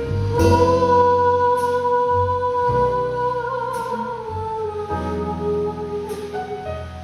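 Jazz ballad with a singer holding one long note for several seconds, wavering and then sliding down a little past the middle, over piano and bass accompaniment.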